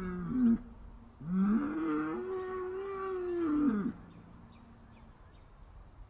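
Cow mooing: the tail of one moo ends about half a second in, then a long moo starts about a second in, rises, holds and falls away near four seconds in. The calls are of the kind the title calls sad and upset.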